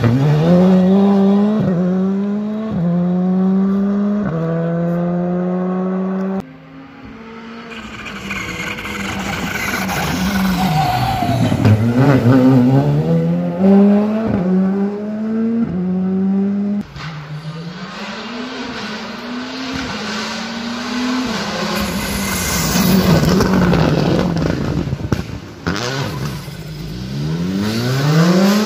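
Rally car engines accelerating hard through the gears. The pitch climbs, then drops back at each upshift. Several separate passes are cut together, with abrupt jumps about six and seventeen seconds in.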